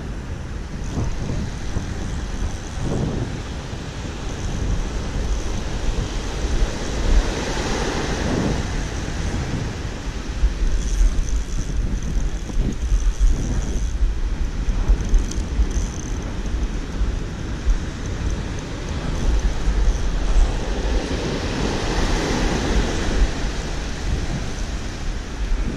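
Wind buffeting the microphone over the steady wash of surf breaking on the beach, the waves swelling up twice, about a third of the way in and again near the end.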